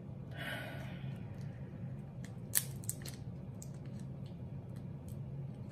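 Crab-leg shell being cracked and pulled apart by hand: a few sharp snaps and crackles, the loudest about two and a half seconds in, over a steady low hum.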